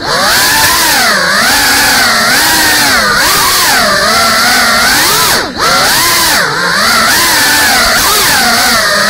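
GEPRC CineLog 35 cinewhoop's motors and ducted propellers whining in flight, the pitch swooping up and down constantly with throttle. There are two brief drops in level, near the start and about five and a half seconds in.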